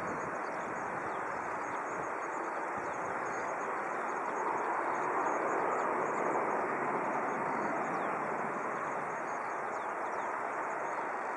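Distant Boeing 737 jet engines running as the airliner lines up on the runway: a steady rush that swells slightly midway.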